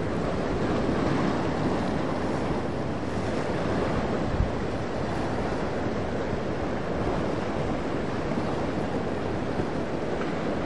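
Steady rushing of water and wind from a sportfishing boat's wake and bow spray at speed, with no distinct engine note.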